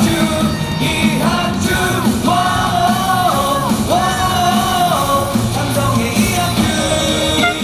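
Loud amplified rock-style cheer music with many voices singing and yelling along in long held notes, as at a baseball stadium.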